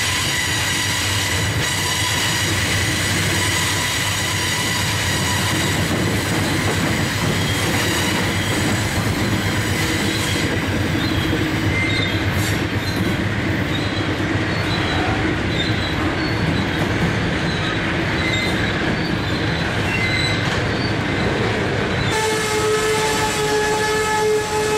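Diesel-hauled freight train passing on a curve: the cars rumble by with a steady high wheel squeal and short flange chirps in the middle. Near the end it gives way to a sustained pitched tone.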